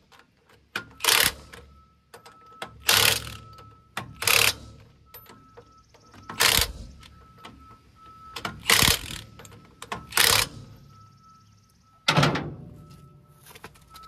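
Cordless impact wrench firing in short bursts on trailer-wheel lug nuts, about seven bursts each under half a second, roughly one every second and a half, as the nuts on a newly mounted tire are run down and snugged.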